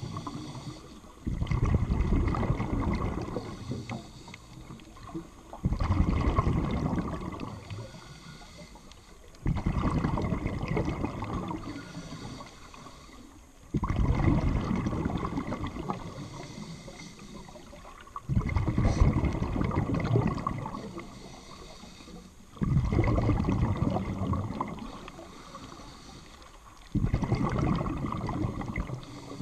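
Scuba diver's regulator breathing underwater: a rush of exhaled bubbles that starts suddenly and fades, repeating about every four seconds, seven breaths in all.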